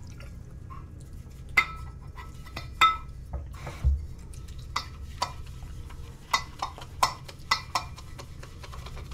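Wilkinson Sword shaving brush working shaving cream into lather in a stainless steel shave bowl. Irregular light clinks, about one a second, as the brush meets the metal bowl, several leaving a brief ring.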